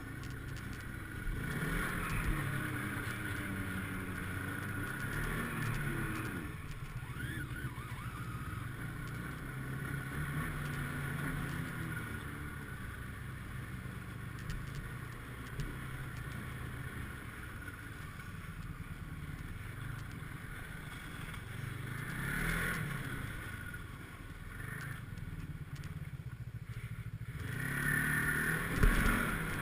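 Snowmobile engine running under way, its pitch swelling and falling several times as the throttle is worked.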